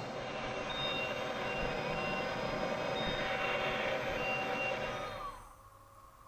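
Steady hum and hiss inside a submersible's cabin, from thrusters and onboard machinery, with several short high electronic beeps repeating through it. The noise cuts off sharply about five seconds in.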